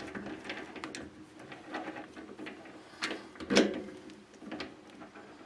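Metal clicks, scrapes and clunks of a steel workpiece being fitted into a mini lathe's three-jaw chuck and the chuck being turned by hand. There is one louder clunk about three and a half seconds in.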